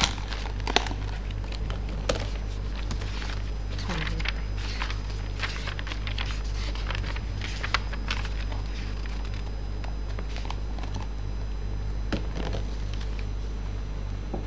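Light handling noises: scattered clicks and crinkles of a thin clear plastic food container being turned in the hands and paper pages being leafed, mostly in the first half, over a steady low electrical hum.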